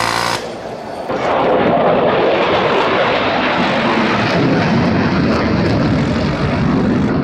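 The tail of a burst from the M163's 20 mm M61 Vulcan rotary cannon, a harsh buzz that cuts off about half a second in. From about a second in, a loud, steady rumbling roar follows.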